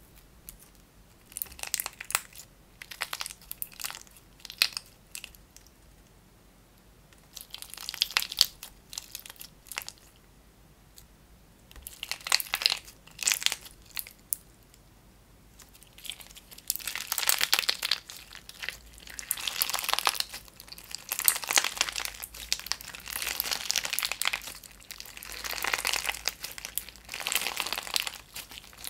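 Hands squeezing and pulling a clear-base slime packed with small plastic pieces, which crinkle and crackle. At first the crackling comes in short spells with pauses between; from about halfway through it runs almost without a break.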